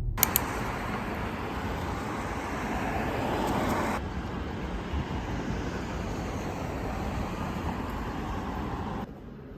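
Steady road traffic noise with two sharp clicks just after it starts; the noise changes abruptly about four seconds in and drops away suddenly near the end.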